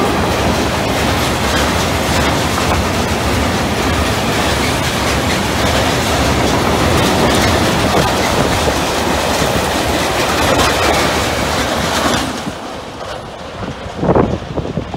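Freight train of CD Cargo tank wagons rolling past at speed: steady wheel-and-rail noise that falls away about twelve seconds in as the last wagon passes. A brief loud burst of noise comes near the end.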